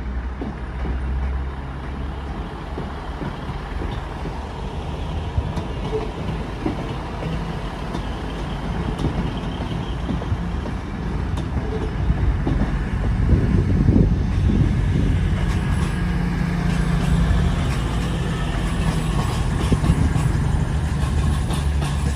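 Class 222 Meridian diesel multiple unit running with its underfloor diesel engines, a steady rumble that grows louder about halfway through as the engines power up.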